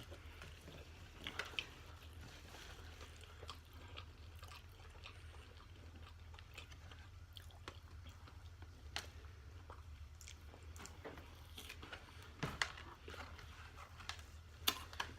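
Close-miked eating: chewing with scattered small crunches and clicks, a few louder ones near the end, over a steady low hum.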